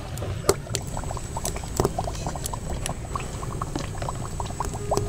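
Besan-battered potato chops deep-frying in hot oil in a kadai: steady sizzling with many small, irregular crackling pops.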